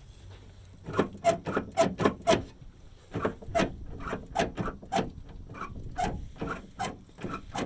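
Ford F-250 tailgate latch mechanism worked by hand: the release lever and its linkage rods clacking repeatedly, about two clicks a second, with a short pause about two and a half seconds in.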